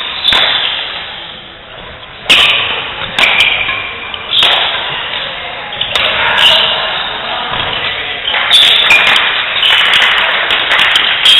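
Sharp cracks of badminton rackets striking a shuttlecock, at irregular intervals of a second or two and coming closer together near the end, echoing in a sports hall.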